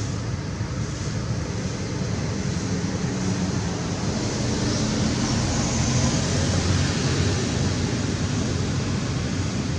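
Steady rumbling noise with no distinct events, loudest at the low end, with a faint hum running through it, swelling slightly about halfway through.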